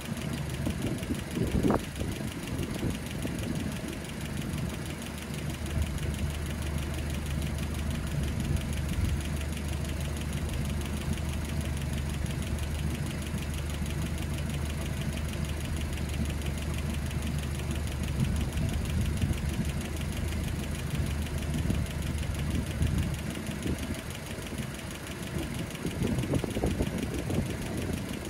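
Land Rover Series 3 2.25-litre petrol four-cylinder engine idling steadily with the rocker cover off, the exposed valvetrain clicking; a slight clack that the owner traces to valves 3, 4 and 7 needing their clearances reset. A brief knock sounds about two seconds in.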